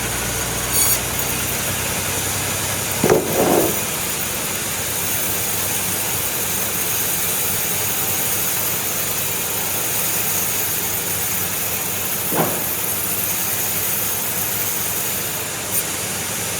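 Machinery running with a steady, even hiss-like noise, a low hum dropping out about two seconds in, and a few short louder sounds about three seconds in and again about twelve seconds in.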